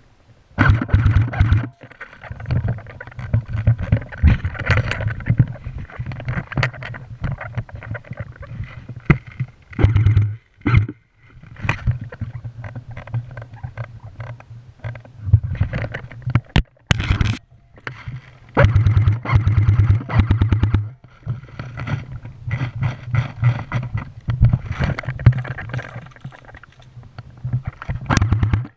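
Muffled rumbling, knocking and scraping handling noise from a body-mounted GoPro as its wearer moves, coming and going in uneven bursts, with a few sharp clicks.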